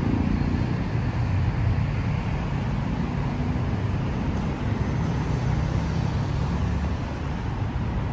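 Steady rumble of road traffic, with most of the sound low and deep and no single event standing out.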